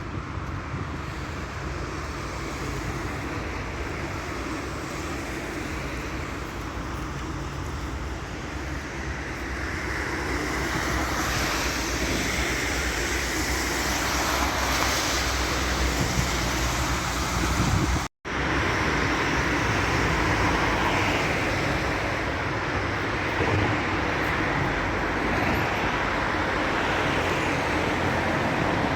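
City traffic noise: a steady wash of passing vehicles that grows louder about ten seconds in. It cuts off abruptly just past the middle, then resumes as a similar steady noise.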